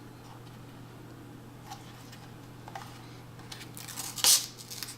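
Protective plastic film being peeled off a new docking station: faint crinkles and ticks, then a short louder peeling rip about four seconds in.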